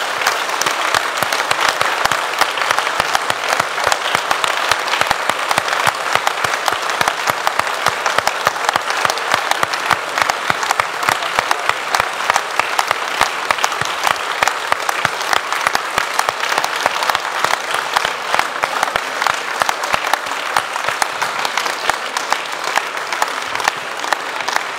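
Sustained applause from a hall crowd, many hands clapping steadily, in answer to a near-unanimous vote result.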